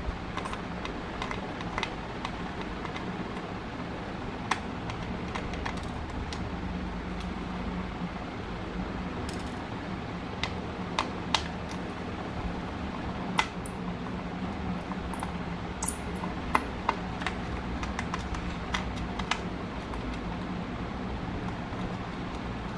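Small repair tools clicking and tapping against a smartwatch's case at irregular intervals, over a steady low fan hum.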